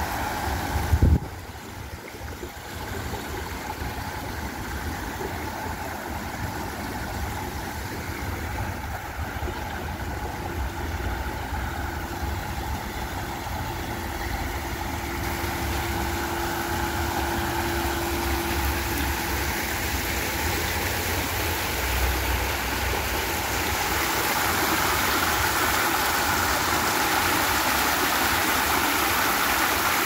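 Water from a man-made rock waterfall and stream running and splashing over rocks into a pond, with a low rumble underneath. It grows louder and hissier near the end. A single thump comes about a second in.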